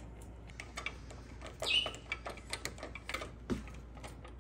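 Hand screwdriver driving small screws through a plastic bracket into the table's sheet-metal frame: irregular small clicks and ticks of the screw and tool.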